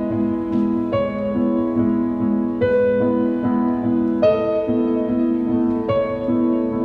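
Instrumental keyboard music: held piano chords that change about every one and a half seconds.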